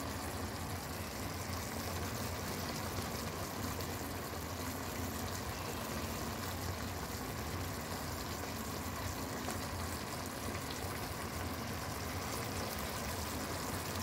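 Chicken feet adobo simmering in its soy-vinegar sauce in a pan: a quiet, steady bubbling hiss.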